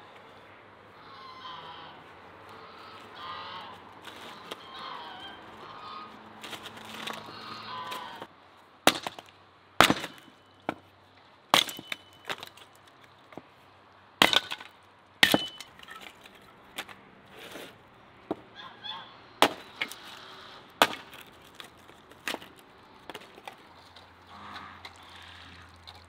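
A hatchet splitting dry firewood into kindling on a concrete slab: a series of sharp chops, about one a second, starting about nine seconds in and stopping shortly before the end. Before the chopping, farmyard fowl call repeatedly.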